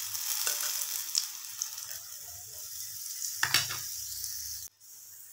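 Spoonfuls of urad dal batter frying in hot oil with a steady sizzle and crackle. There is a louder burst about three and a half seconds in, and the sizzle cuts off abruptly near the end.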